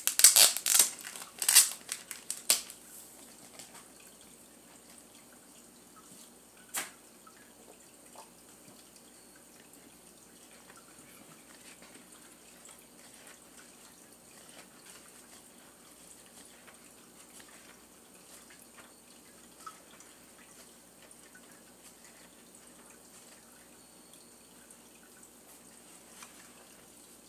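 Packaging being torn open by hand: several sharp rips and crinkles in the first couple of seconds, a single click about seven seconds in, then faint rustling as the comic book is worked out of its wrapping.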